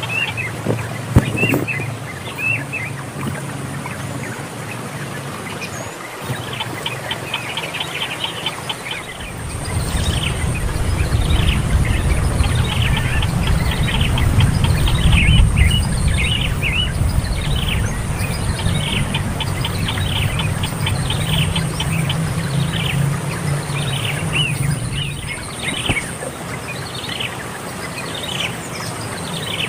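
Bird calling a long series of short chirps, each falling in pitch, about one or two a second, over a low rumbling noise that comes in about a third of the way through.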